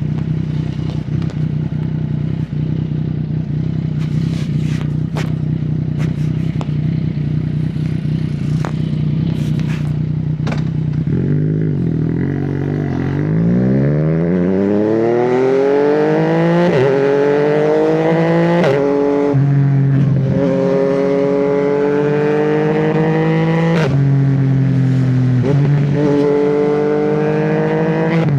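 Yamaha MT-09 three-cylinder motorcycle engine running steadily at low revs for about the first eleven seconds, then accelerating hard with the revs climbing through several quick quickshifter upshifts, each a brief cut in the engine note before it climbs again.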